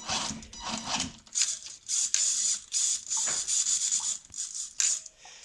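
Repeated short scrubbing strokes on an RC crawler's body and chassis during washing. The strokes come in irregular bursts of roughly half a second to a second, with a few brief gaps between them.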